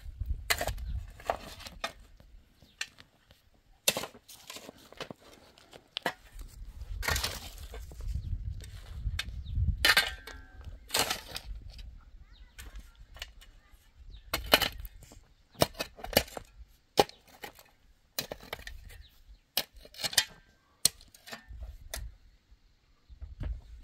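Metal shovel digging into dry, stony soil: the blade strikes and scrapes through earth and rocks in irregular strokes, with sharp knocks where it hits stones.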